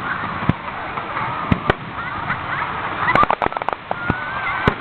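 Aerial fireworks bursting: separate sharp bangs every second or so, with a quick rattle of crackling bangs about three seconds in.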